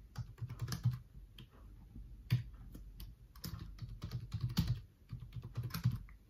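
Typing on a computer keyboard: quick, irregular runs of key clicks as a password is entered and then entered again to confirm it.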